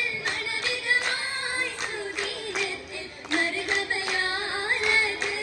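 Girls' voices singing a Mappila song for an Oppana dance, with the dancers' rhythmic handclaps beating time throughout.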